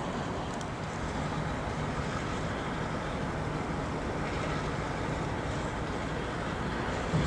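Triple Crown RoadRailer trailers rolling past on their rail bogies: a steady rumble of steel wheels on track with a low, even hum beneath it.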